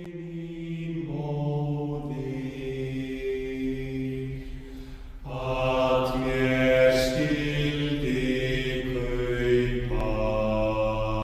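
Slow background music of long, held, chant-like notes, changing every few seconds and swelling fuller about halfway through.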